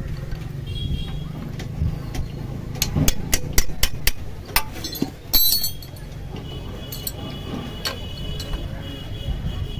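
Metal spanner clinking and scraping against the lower tappet cover of a Splendor Plus engine's cylinder head as the cover is worked loose, with a cluster of sharp clinks about three seconds in and another near the middle.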